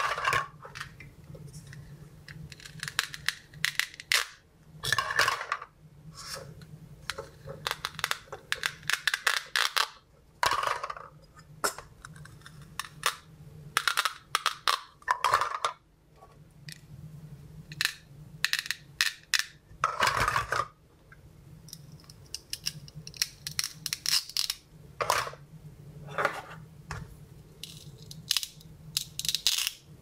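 Plastic toy play food knocking and clattering in a plastic bowl as the pieces are handled, with scraping rips as hook-and-loop (velcro) halves are pulled apart. The clicks and knocks come in irregular clusters, with louder bursts every few seconds.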